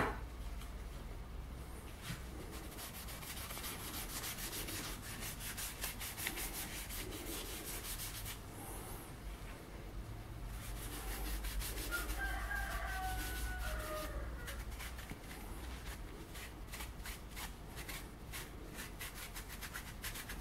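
A rag rubbing a finish from a tin into a small turned wooden part in quick repeated strokes. There is a short squeak about twelve seconds in.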